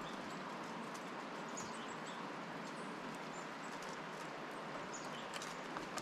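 Steller's jays feeding at a wooden seed feeder: scattered light taps and clicks of pecking and landing over a steady outdoor hiss, with a few short, faint, high bird chirps.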